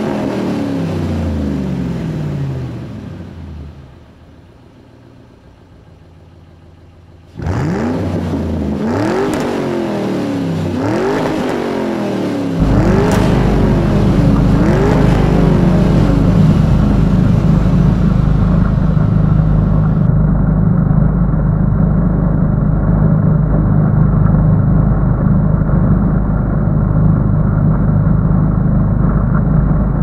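John Deere garden tractor engine running, with repeated rising-and-falling pitch as the throttle changes; about four seconds in it fades away as the tractor moves off, then comes back close and loud about seven seconds in. A little after that it settles into a steady, louder running while the tractor's front-mounted snowblower throws snow.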